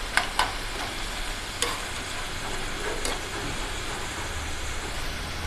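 Raw banana slices deep-frying in hot oil, a steady sizzle. A wire-mesh skimmer stirring them gives a few light clicks against the metal pan in the first three seconds.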